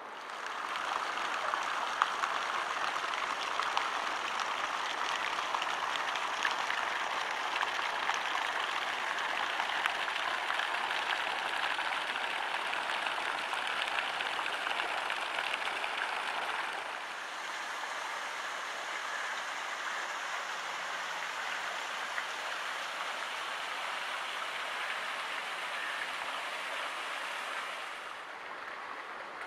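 Steady rushing of splashing or running water, even and without pitch; it drops a step in level a little past halfway and again near the end.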